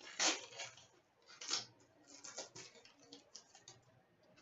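Trading cards handled by hand, slid and flicked one over another: a run of short, irregular swishes and light clicks of card stock, louder near the start and fading toward the end.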